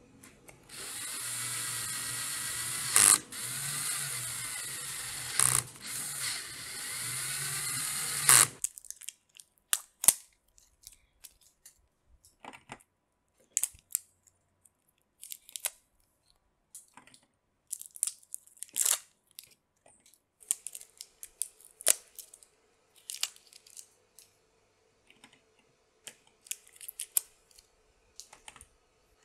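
A cordless drill runs for about eight seconds, driving screws into plastic 18650 battery cell holders, with a few sharp clicks along the way. It stops, and a string of light clicks and taps follows as cylindrical lithium-ion cells are pushed into the holders.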